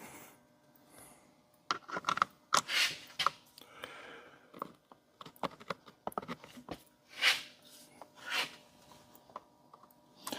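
Hands working on a chainsaw's carburetor and fuel line: irregular small clicks and taps of plastic parts, with a few short rubbing swishes.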